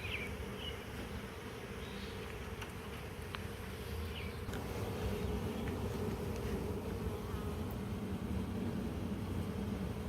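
Honey bee swarm humming: the steady, even drone of many bees in flight around the cluster as it regroups.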